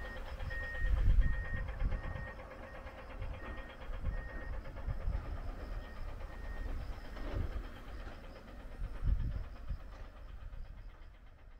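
Wind buffeting the microphone in gusts, a low rumble that rises and falls. A faint, short high beep repeats at a steady pace through the first half.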